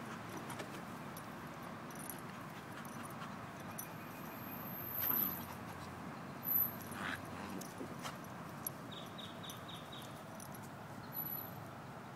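A black puppy and a brindle pit bull playing together, with faint dog sounds over a steady background. There are a couple of brief louder sounds about five and six and a half seconds in.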